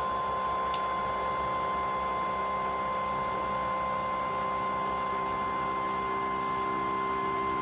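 An FDM 3D printer running: a steady machine hum with several fixed whining tones, a short click about a second in, and a shift in the lower tones about halfway through.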